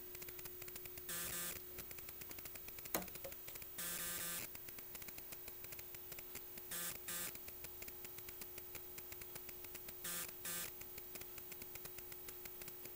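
Faint steady electrical hum from bench test equipment, under a fast faint ticking, with short bursts of hiss roughly every three seconds.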